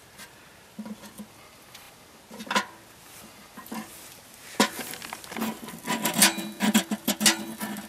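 Sticks and kindling clicking and snapping as they are laid onto a freshly lit birch-bark and fatwood tinder fire. The clicks are scattered at first and grow denser about halfway through.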